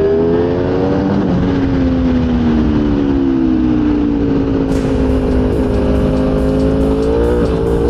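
Ducati Panigale V4 R superbike's V4 engine running hard at high revs. Its pitch rises for about a second, falls slowly over the next few seconds, then climbs again near the end.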